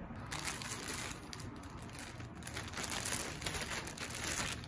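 Clear plastic packaging bag crinkling and rustling as a garment inside it is handled, starting about a third of a second in and stopping near the end.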